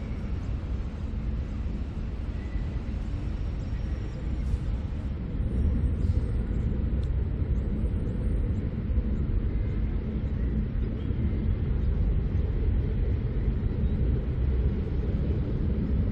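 Steady low rumble of city traffic around the park.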